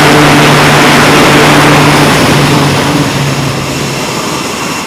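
E-2C Hawkeye's twin turboprop engines at full power for a catapult launch: loud rushing propeller noise over a steady low drone. It eases off over the last second or two and cuts off suddenly near the end.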